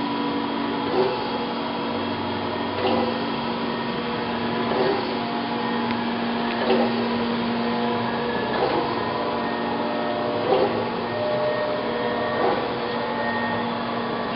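Chevalier FSG-1632 CNC surface grinder running: a steady hum of its motors and hydraulic unit, with a short knock about every two seconds as the hydraulic table reverses its stroke.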